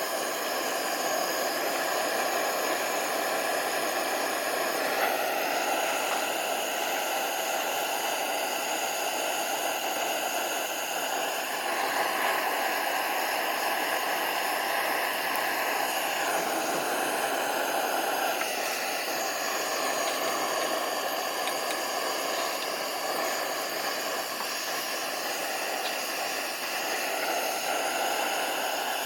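A dense, steady chorus of summer insects: many high buzzing tones layered over a hiss. The chorus shifts in pitch a few times as individual callers start and stop.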